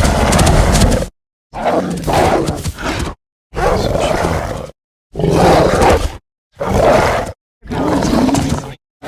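Angry wolf growling and snarling in a series of about six short separate takes, each a second or so long, cut apart by moments of dead silence.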